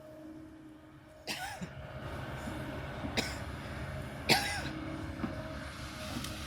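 Kobelco excavator's engine running steadily, picking up about a second in. Three sharp sudden sounds break over it, the last the loudest.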